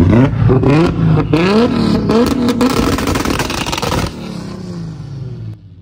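A car engine revved hard in a quick series of throttle blips, each rising sharply in pitch, with sharp cracks among them. It cuts off about four seconds in and dies away over the next second and a half.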